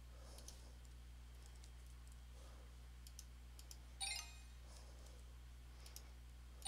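Faint computer mouse clicks over a low steady hum. A short electronic chime about four seconds in and another at the very end, the Khan Academy exercise's sound for a correct answer.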